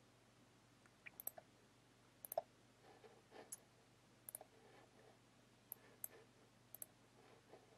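Faint computer mouse clicks over near-silent room tone, about a dozen in all, several in quick pairs like double-clicks, with a faint steady low hum underneath.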